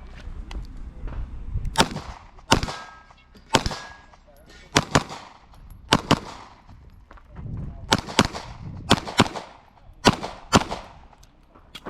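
Pistol shots fired in an IPSC course of fire: about a dozen sharp reports, singly and in quick pairs, with short pauses between groups, each ringing briefly.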